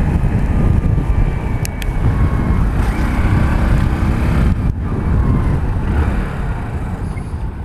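Hero Splendor Plus BS6 single-cylinder motorcycle being ridden, heard through a microphone inside the rider's helmet: a steady rush of wind and road noise with the engine running underneath.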